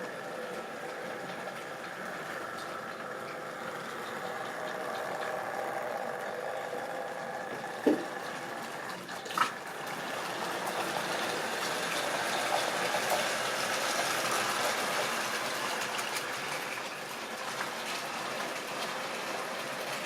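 Model railway train running on track: a steady electric-motor hum with wheel rumble. Two sharp clicks come about eight seconds in and again a second and a half later.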